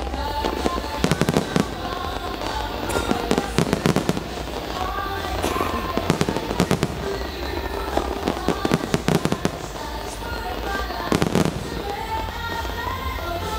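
Aerial fireworks bursting in quick clusters of sharp bangs and crackles, with a pause between groups, over music playing throughout.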